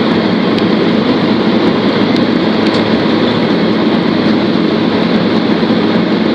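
Boeing 767-300's turbofan engines running steadily at low taxi power just before takeoff, heard inside the cabin as a loud, even rush with a constant low hum.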